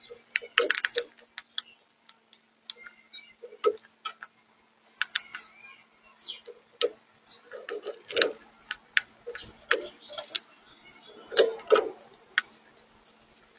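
Crimson rosella tapping and pecking with its beak: irregular sharp clicks, some in quick clusters, with a few soft chirps between them.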